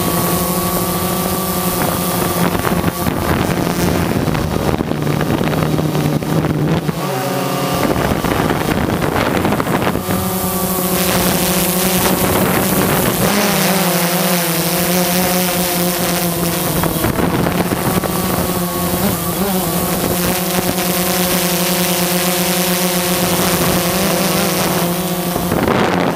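Multirotor drone's motors and propellers humming steadily, heard from the drone's own camera, with a buzzy pitched drone over rushing air. The pitch dips and shifts briefly about seven seconds in and again around thirteen seconds.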